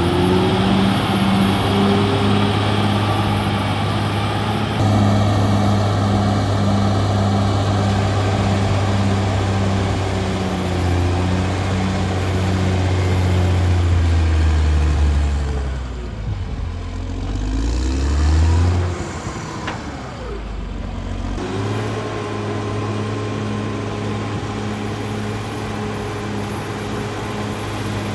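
Caterpillar D6R XL bulldozer's diesel engine running hard. About halfway through the engine note sags and picks up again twice, then it runs steady.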